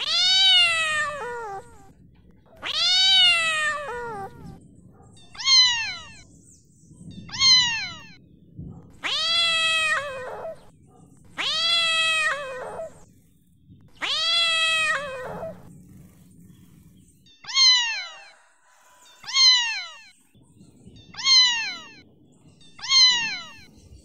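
Domestic cat meowing over and over, each meow falling in pitch. Several long, drawn-out meows come first, then short meows about two seconds apart.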